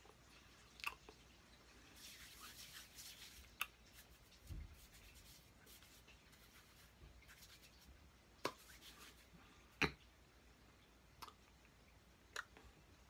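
Near silence broken by about six faint, sharp taps and claps of hands striking each other while signing. There is a soft rustle of hands and clothing about two to three seconds in, and a dull low thump about four and a half seconds in.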